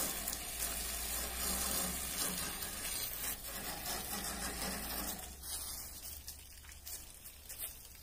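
Water spraying from a hose onto an iced-up air conditioner unit to defrost it: a steady hiss with a low hum under it, dying away about five seconds in.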